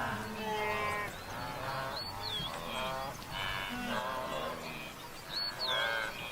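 A wildebeest herd calling, many overlapping nasal honking grunts. A short high bird whistle repeats twice, about a second in and near the end.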